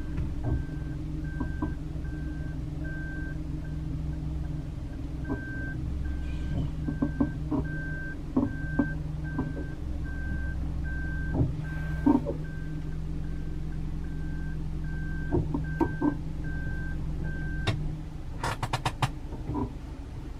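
Camper van reversing with its reverse-warning beeper sounding a regular high beep over the steady drone of the running engine, with scattered clicks and creaks from the body. The beeping stops about three-quarters of the way through, followed by a quick run of sharp clicks.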